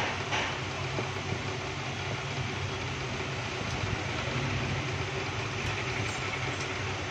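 Steady low rumble and hiss of background noise, with a couple of faint handling clicks in the first second as the phone is pressed together by hand.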